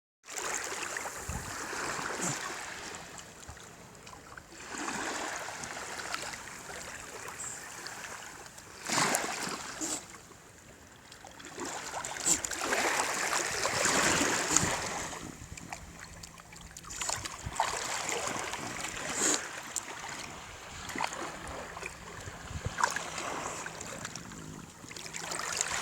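Sea waves washing onto the shore, the rush of water swelling and fading every few seconds.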